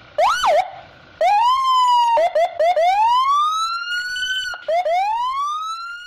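Siren-like wail: a quick up-and-down warble near the start, then rising pitch sweeps that climb and level off, with a few short chirps in the middle, each sweep cutting off abruptly.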